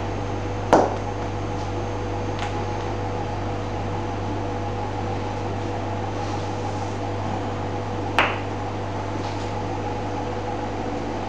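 Steady machine hum of kitchen equipment, with two short sharp knocks, one about a second in and one about eight seconds in.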